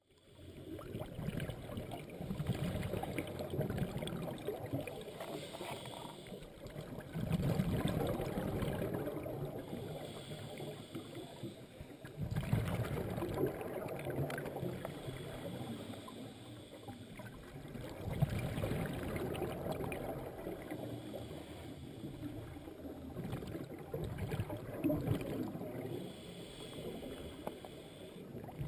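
Scuba diver's regulator breathing, heard underwater: a hiss on each breath in and a burst of bubbling exhaust on each breath out, repeating about every five seconds.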